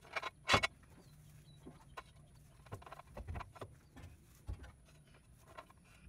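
Steel jack stand being handled and set in place: a scatter of short metal clanks and knocks, the loudest about half a second in.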